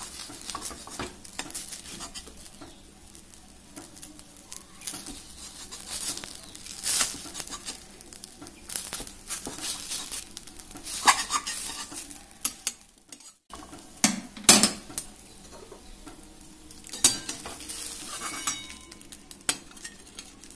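Metal spatula scraping and knocking against a metal kadai as a rolled egg omelette is cut into pieces in it, over a light sizzle of frying. The knocks come irregularly, and several louder clanks fall in the second half.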